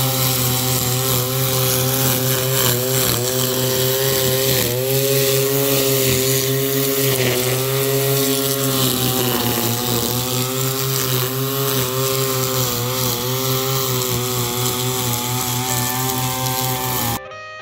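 Echo two-stroke gas string trimmer running at high speed while cutting grass. Its engine note keeps dipping and recovering as the line bites into the grass. It cuts off abruptly near the end, when guitar music takes over.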